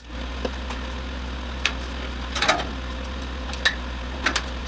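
A steady low machine hum, with a few short, light clicks and taps scattered through it.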